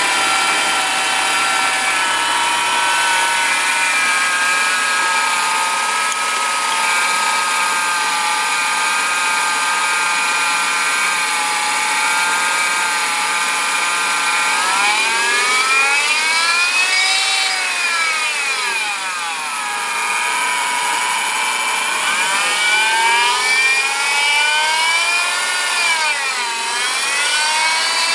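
Mercedes-Benz M102 four-cylinder petrol engine running with a buzzing whine from a failing belt tensioner pulley. It idles steadily, then is revved up and back down twice in the second half, and the whine rises and falls in pitch with engine speed.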